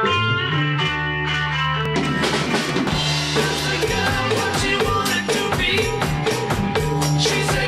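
Rock band music: an electric guitar and bass riff, with a drum kit coming in about two seconds in and playing a steady beat with snare and bass drum.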